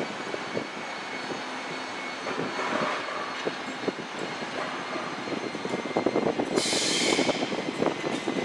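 MTR South Island Line S-train electric multiple unit pulling slowly into the station, wheels on the rails giving many clicks and knocks that grow louder as it nears. A short high hiss comes about seven seconds in.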